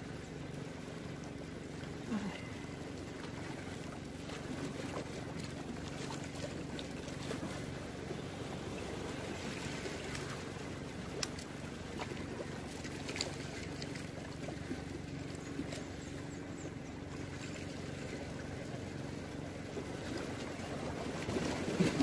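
Steady seashore ambience: a wash of sea and wind with a low steady hum underneath, and a few faint clicks of fishing tackle being handled.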